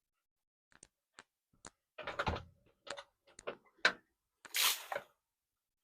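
Irregular clicks and knocks of a hand-pump beer engine and its line being handled during cleaning, with a short hiss about four and a half seconds in.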